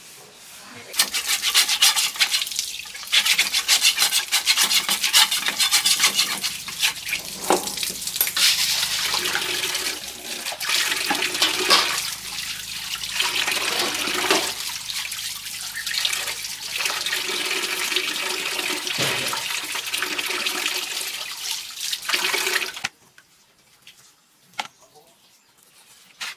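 Water running and splashing for about twenty seconds, then stopping abruptly.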